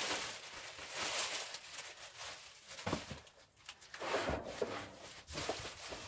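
Plastic wrapping crinkling and rustling as it is handled and pulled, with a couple of short soft knocks in the middle.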